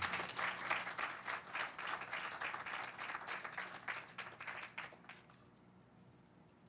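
Audience applauding, dense clapping that thins out and dies away about five seconds in.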